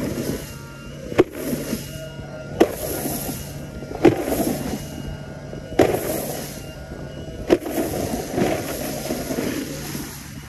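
Electric hydrofoil board's hull slapping down onto the lake surface, sharp slaps about every second and a half, as it rides up on the foil and drops back. Between the slaps, a steady rush of water and a low hum from the board's motor.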